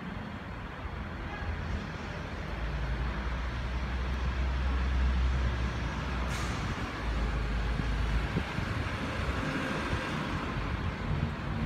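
Street traffic noise: a steady rumble of road vehicles, with a deeper low rumble swelling through the middle as a heavy vehicle passes, and one brief hiss a little past halfway.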